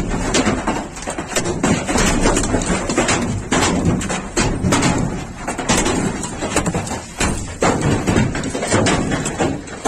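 Large hailstones pelting hard surfaces such as car bodies and the ground, a dense, irregular clatter of sharp knocks over a steady hiss of falling ice.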